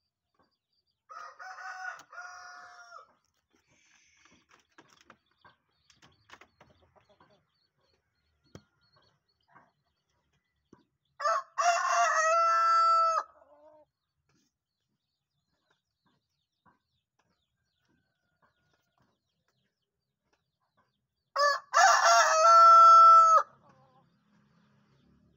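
Rooster crowing three times, about ten seconds apart: a fainter crow about a second in, then two loud ones. Each crow is a short opening note followed by a long drawn-out held note that drops at the end, the prized crow of a rooster kept for crowing contests. Faint light clicks and taps fall between the first two crows.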